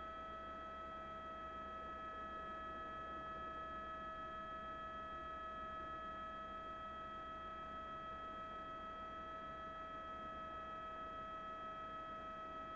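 A steady electronic whine: one unchanging tone with a higher, louder overtone, over a faint low hum.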